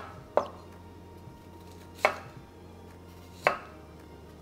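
Kitchen knife cutting through cauliflower florets and striking a wooden cutting board: three sharp chops, about a second and a half apart.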